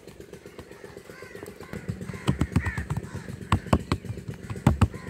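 Crows cawing repeatedly, with sharp slaps in quick pairs, about one pair a second in the second half, as roti dough is patted flat by hand.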